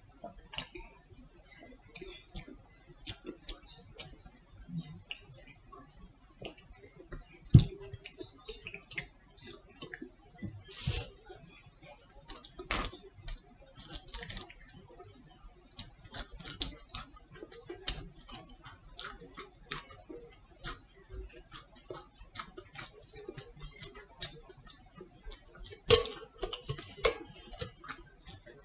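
Close-up mukbang-style eating of fast food: irregular clicks, smacks and small crunches of chewing, with a few louder knocks from a glass and food being handled on the table.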